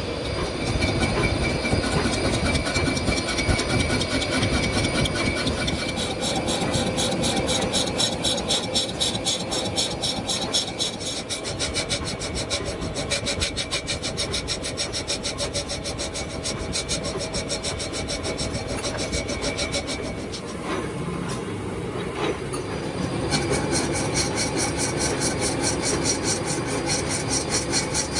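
Metal lathe turning a cast pulley blank, the cutting tool scraping across the spinning metal in a fast, even rasp over the machine's steady running. The cut eases briefly about two-thirds of the way through, then picks up again.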